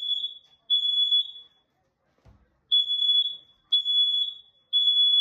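Smoke detector sounding its alarm in the three-beep temporal pattern: loud high-pitched beeps in groups of three with a short pause between groups, the detector going off under test. A faint thump comes in the pause.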